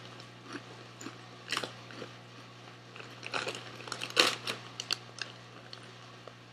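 Crunchy ridged potato chips (Ruffles Queso) being chewed with the mouth closed: irregular crisp crunches, the loudest about four seconds in.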